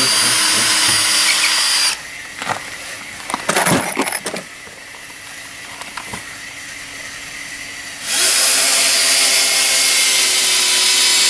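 Cordless drill running into the timber of a log-cabin wall in two long runs, the first stopping about two seconds in and the second starting about eight seconds in. A few short knocks and clatters come in the pause between them.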